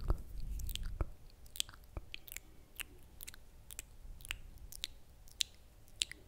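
Close-miked wet mouth sounds: irregular lip and tongue clicks and smacks, a few a second, made right at the microphone.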